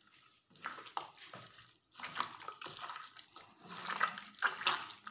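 Wet squelching of raw chicken pieces being squeezed and turned by hand in an oily spice marinade in a plastic bowl, in irregular bursts with a short pause about two seconds in.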